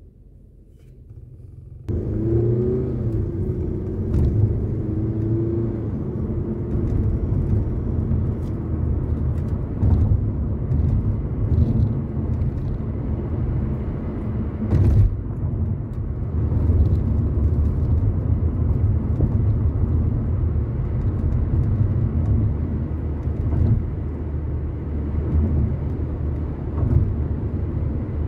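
Car driving, heard from inside the cabin: a steady low rumble of road and engine noise that starts abruptly about two seconds in after a faint hum, with a sharp click about halfway through.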